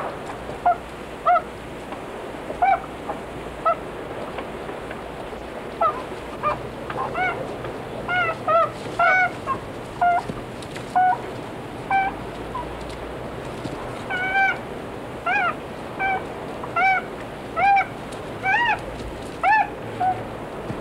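North American beaver kits crying: a long run of short, high, whining calls, each rising and then falling in pitch, about one a second and coming closer together in the second half.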